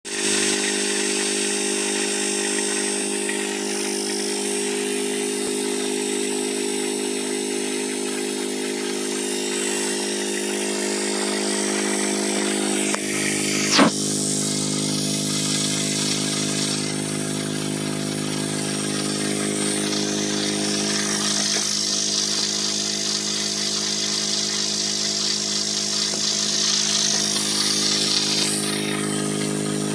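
Washing machine motor driving a homemade grinding stone, running with a steady hum. About fourteen seconds in there is a brief sharp, high-pitched sound, and a deeper hum joins in from then on.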